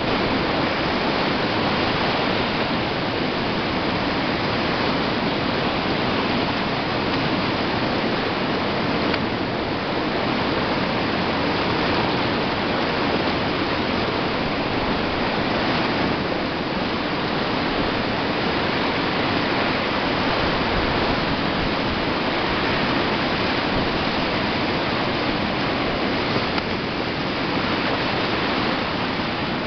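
A large whitewater rapid on a river in monsoon flood, giving a steady, heavy rush of churning water.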